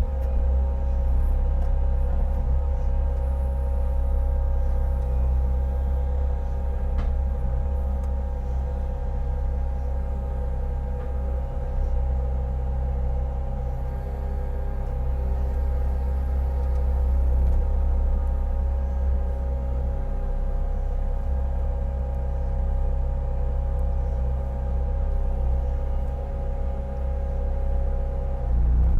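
Bobcat T650 skid steer's diesel engine running steadily with a deep rumble and a constant whine, powering the Ram splitter while firewood is split.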